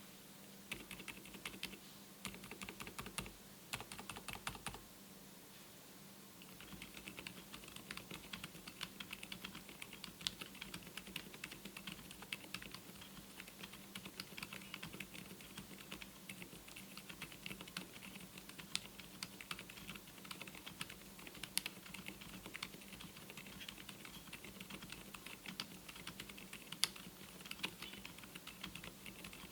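Typing on a MelGeek Mojo84 mechanical keyboard fitted with TTC Frozen Silent switches: a rapid stream of quiet, muted keystrokes. The typing breaks off briefly about five seconds in.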